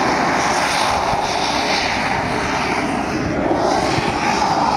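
Jet engine running, a steady loud rushing noise with no distinct tones.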